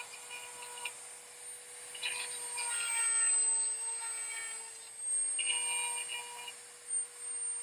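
Dremel rotary tool running at full speed with a ceramic grinding bit, whining steadily, with three short rasping grinding passes as the bit is pressed into the cutting teeth of a chainsaw chain. This is a dull chain being sharpened back to bright steel.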